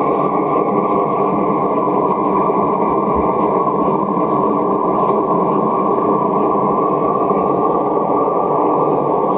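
Long-handled gas torch burning steadily with a constant rushing noise as its flame is played over the rim of a freshly thrown clay pot, drying and stiffening the clay so it won't collapse under the weight of the next section.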